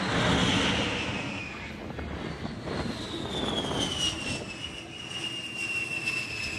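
A-10 Thunderbolt II's twin TF34 turbofan engines during a flyby: a loud rush that peaks about half a second in, with a high whine that falls in pitch as the jet goes past.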